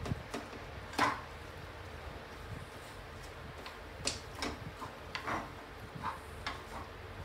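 Spatula scraping and knocking against a non-stick frying pan as grated apple is stirred and pressed while it sautés in ghee: irregular short knocks, the loudest about a second in and several more in the second half.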